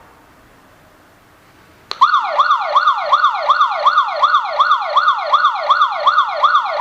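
Tuya Wi-Fi smart alarm hub's built-in siren going off about two seconds in: a loud electronic wail of fast falling sweeps, about three a second, the alarm tripped while the system is armed.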